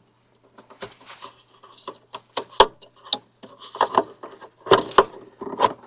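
A zip tie's tail being snipped off and wiring being tucked away by hand: a series of irregular sharp plastic clicks and light knocks.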